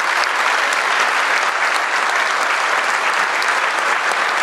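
A large audience clapping steadily, many hands at once.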